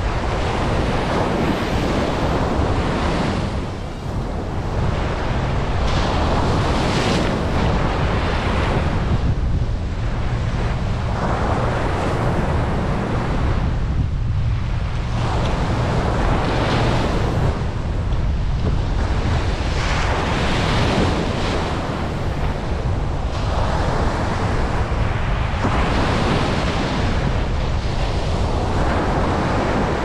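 Ocean surf breaking and washing up a sandy beach, a continuous rush that swells with each wave every three to four seconds. A steady low rumble of wind buffets the microphone underneath.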